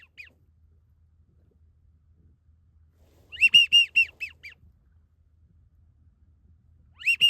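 Seagulls calling: quick runs of short, arched, high-pitched calls, the longest run of about six notes midway, with shorter bursts at the start and near the end.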